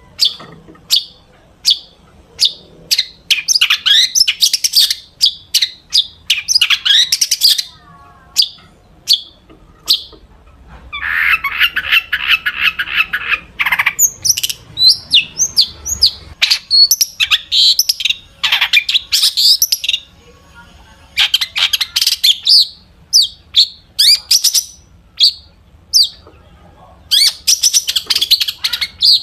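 Long-tailed shrike (cendet) singing loudly and with great variety, weaving imitations of other birds' songs into its own. Sharp single calls repeat about one or two a second between dense rapid chattering runs, with a harsh rasping stretch near the middle.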